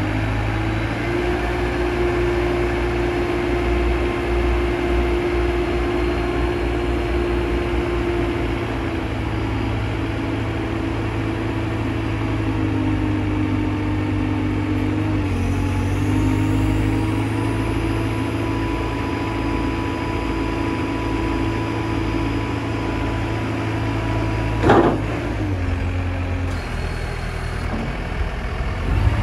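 Dieci Runner 40.13 telehandler's diesel engine running steadily as the boom and bucket are worked, with a steady whine that shifts pitch a little about halfway through. A short sharp sound stands out about 25 seconds in.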